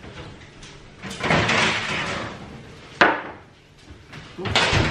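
Metal baking tray taken out of the oven: a scraping rush as it slides off the rack, then a sharp metallic clank about three seconds in as it is set down on the worktop, and a heavier knock near the end.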